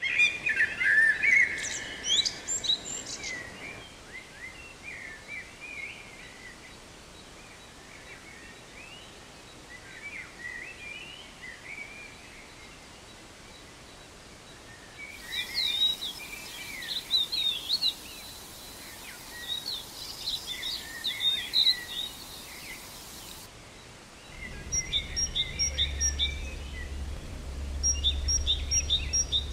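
Wild birds chirping and singing in scattered clusters of short calls. In the last few seconds, a low steady hum joins them.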